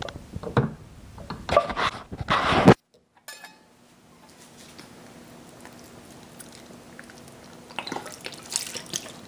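Silicone spatula scraping thick coconut cream out of a metal can, with loud scrapes and knocks against the can, cutting off abruptly just under three seconds in. After a quiet stretch with a faint steady hum, softer scraping and clicks return near the end as the cream is pushed off into a metal pot.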